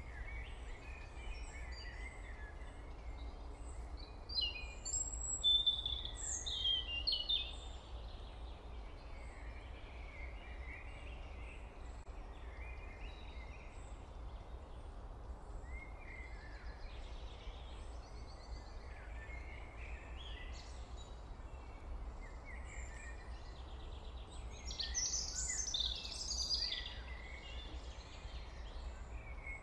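Birds chirping off and on in short calls and quick gliding notes, busiest about a quarter of the way in and again near the end, over a steady low hum.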